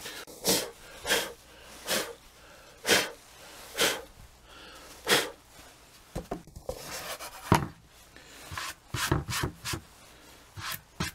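Sanding dust being cleared off a foam-board scenery piece by hand: short brushing rubs about once a second, then a quicker run of light knocks and rubs against the wood near the end.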